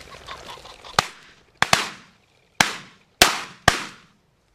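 About six shotgun shots from more than one gun, fired at flushing pheasants in quick succession over about three seconds, each crack trailing off in a short echo. Before the first shot there is a soft rustle of steps through dry grass.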